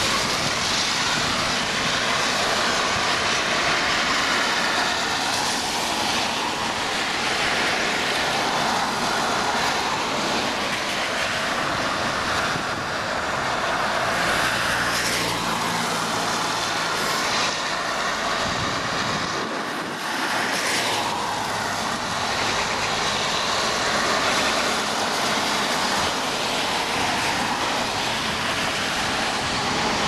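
Traffic on a wet road: a steady hiss of tyres on water that swells each time a car goes by, with a low engine hum from a passing vehicle about halfway through.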